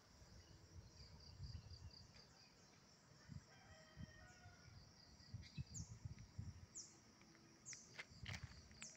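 Faint outdoor ambience: a steady high insect trill, with a bird giving four short high chirps about a second apart in the second half. Irregular low rumbles and knocks sit underneath.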